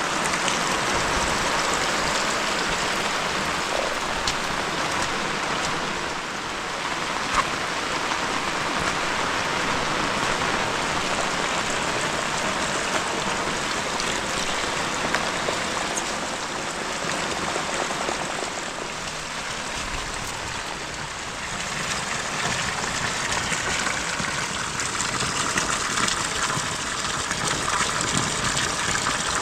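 Heavy rain falling steadily, a dense even hiss of drops, with one brief sharp knock about seven seconds in.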